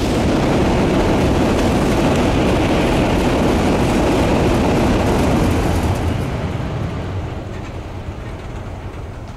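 Tokaido Shinkansen bullet train crossing a railway bridge at high speed: a loud rush and rumble that cuts in all at once, holds steady for about six seconds, then slowly fades as the train moves away.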